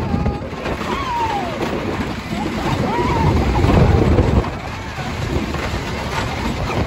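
Wooden roller coaster train running fast over its track with a heavy rumble and strong wind on the microphone; the rumble is loudest around three to four seconds in, then eases. Riders whoop and scream a couple of times over it.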